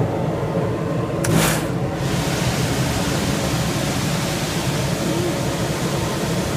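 Carrier rooftop HVAC unit running: a steady rushing hiss over a low hum, with a brief whoosh a little over a second in.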